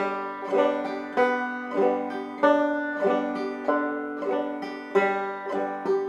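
Five-string banjo in open G played clawhammer (frailing) style, a steady bum-ditty strum with its strongest note about every 0.6 s, working across strings 4, 3, 2 and 1 in turn.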